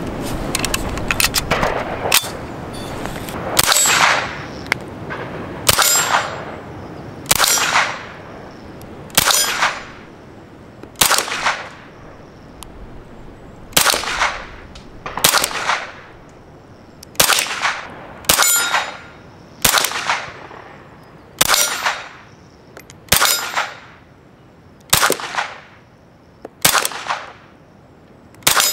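CZ Scorpion-pattern .22 LR semi-automatic carbine fired as single shots. A quick few come in the first two seconds, then one about every one and a half to two seconds. Each shot is followed by a ringing clang, typical of a steel target being hit.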